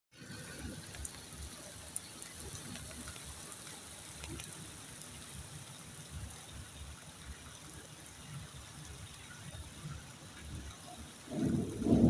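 Steady rain falling, an even hiss with faint scattered drop ticks, under a gusting low rumble. A louder low rumble swells near the end.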